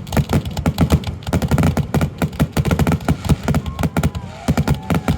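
Fireworks finale barrage: a dense, continuous run of aerial shell bursts, several sharp booms and cracks every second, with a few faint whistling glides about four seconds in.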